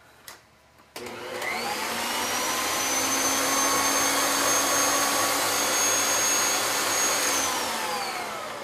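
Electric mixer beating whipped cream back up to stiff peaks. Its motor whine starts and rises about a second in, runs steady at high speed, then winds down near the end.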